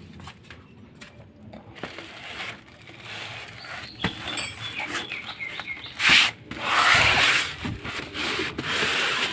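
Rustling and rubbing of packaging being handled and opened. It is faint at first, then comes in louder scratchy stretches over the last few seconds.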